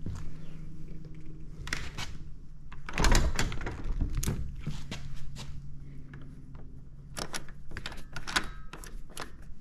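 Hardware of a Doorwin bi-fold door being worked by hand: a lever handle turned and a bolt knob moved, giving a series of clicks and knocks, the loudest about three seconds in.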